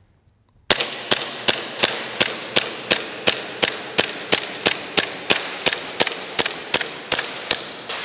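Tokyo Marui Glock 17 gas blowback airsoft pistol firing about twenty shots in a steady string, a little under three a second, each crack echoing in the hall. The firing stops near the end with BBs still in the magazine, which the shooter puts down to the cold.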